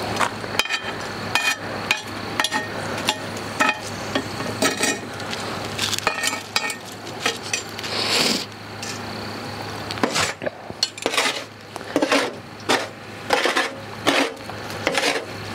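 Metal tongs clinking against charcoal briquettes and the cast-iron lid of a camp Dutch oven as coals are set out around the lid's rim: irregular sharp clinks and light scrapes, one or two a second.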